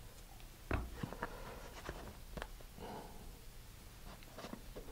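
Faint, irregular clicks and taps of small parts being handled on a workbench: a small bulkhead disc fitted with a screw eye, and a wood glue bottle being picked up, with the sharpest tap about three quarters of a second in.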